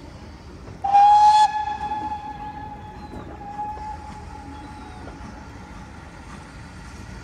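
Steam locomotive whistle blowing one long note. It comes in loud about a second in, then carries on fainter for several seconds before dying away.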